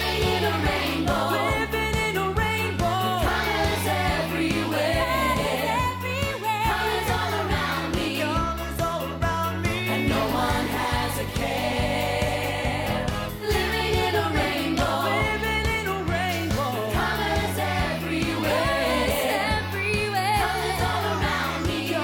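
Pop song with a group of voices singing over a steady, repeating bass line and beat.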